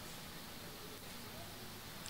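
Faint, steady room tone with a light hiss and no distinct events.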